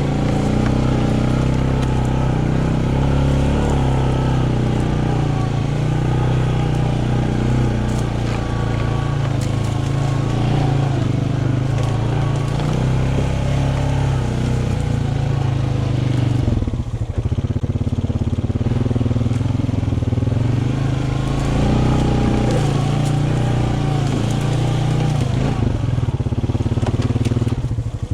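A vehicle engine running steadily while under way, dropping briefly about seventeen seconds in and again near the end.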